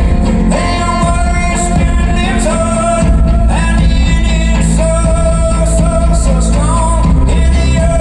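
Live music: acoustic guitar played over a steady, heavy bass low end, with a wordless sung melody of long held notes that slide up and down.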